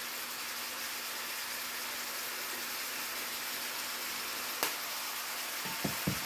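Ground beef and vegetables frying in a skillet: a steady sizzle, with a single sharp tap about four and a half seconds in and a couple of soft knocks near the end.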